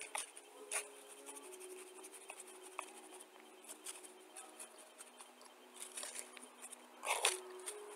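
White plastic spoon scraping and stirring through dry clay powder in a bowl: a run of irregular, soft scratchy strokes, with one louder scrape about seven seconds in.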